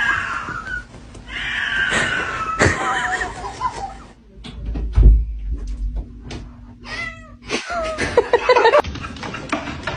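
A cat meowing repeatedly, several drawn-out calls that bend in pitch, with a thump about five seconds in.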